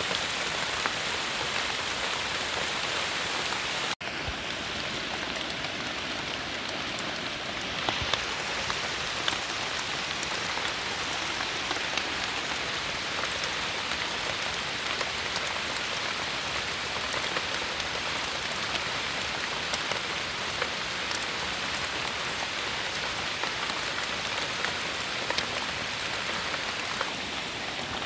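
Steady rain falling on forest leaves and undergrowth, a dense even hiss with single drops ticking on nearby leaves. The sound cuts out for a moment about four seconds in, then carries on.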